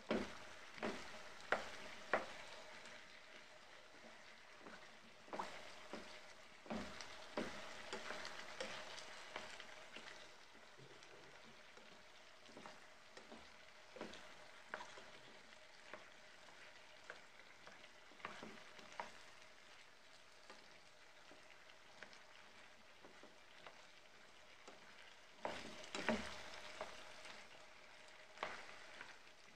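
Potato chunks frying in oil in a non-stick pot with a steady sizzle, stirred by a spatula that knocks and scrapes against the pan in several bouts.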